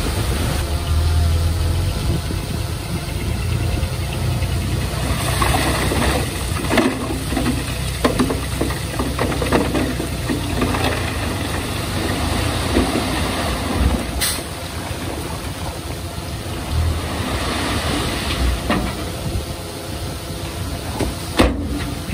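Komatsu D20P bulldozer's diesel engine running steadily, with a busy stretch of clanking and rattling in the middle as it works, and a sharp knock near the end.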